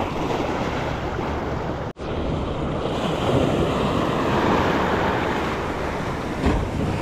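Sea surf washing in steadily, with wind buffeting the microphone; the sound cuts out for an instant about two seconds in.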